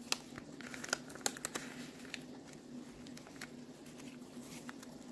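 Handling a cash-budget binder and its clear plastic pocket while a paper bill is slipped in: a few sharp clicks and crinkles in the first second and a half, then soft rustling and light ticks.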